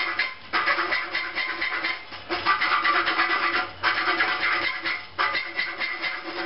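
A bolt hole in a flat steel hanger strap being widened by hand filing: repeated rasping strokes of metal on metal, each about a second and a half long with short breaks between.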